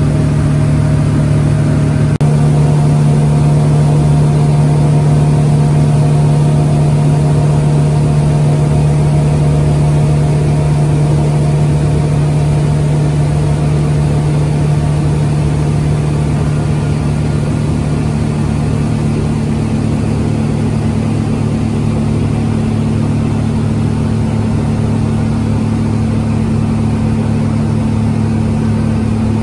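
Speedboat outboard engine running steadily at cruising speed, heard from inside the covered cabin as a loud, even drone with a constant hum. There is a brief break about two seconds in, after which it runs on steadily.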